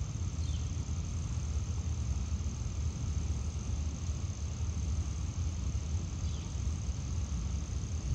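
Outdoor pond ambience: a steady low rumble under a steady high insect drone, with two short faint high chirps, one about half a second in and one about six seconds in.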